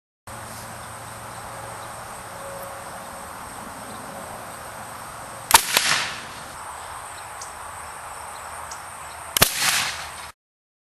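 Two shots from a homemade PVC spud gun, about four seconds apart, each a sharp bang with a short ragged tail, over a steady outdoor background with insects.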